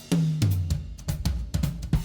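Background music with a steady beat on a full drum kit (kick, snare, hi-hat and cymbal) over a bass line.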